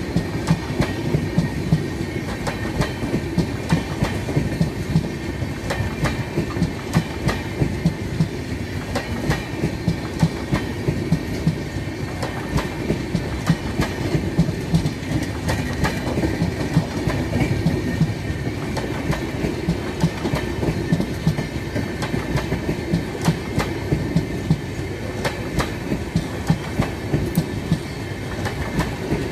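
Passenger coaches of an express train rolling past, their wheels clattering over the rail joints in a continuous run of sharp clicks over a steady rumble.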